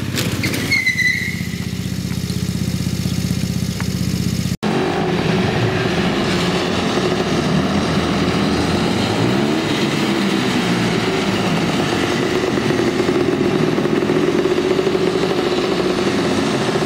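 Small engines of miniature cars running: first a mini Mustang go-kart driving past, then, after a sudden cut about four and a half seconds in, a mini Chevy Nova with a blower on its engine, running and being revved, its pitch rising and falling.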